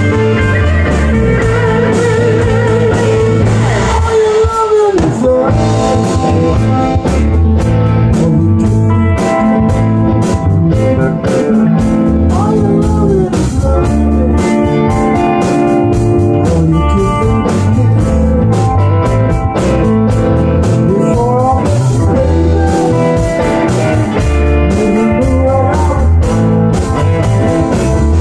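Live blues-rock band playing: two electric guitars, electric bass and drum kit, with a guitar lead of bent and wavering notes over the rhythm section.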